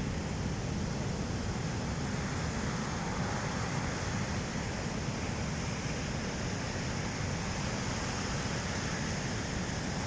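Ocean surf washing steadily onto a beach, an even wash of noise with no single wave standing out.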